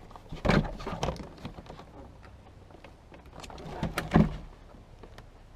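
Several knocks and clicks from handling a car door's interior trim panel and window switch. The loudest are about half a second in and a pair around four seconds in.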